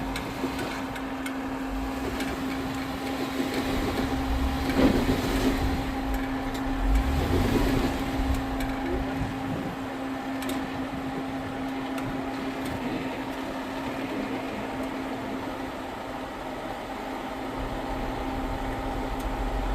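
Off-road vehicle's engine running steadily at low revs while it crawls over rocks, heard from inside the cab, with two brief louder surges about five and seven and a half seconds in.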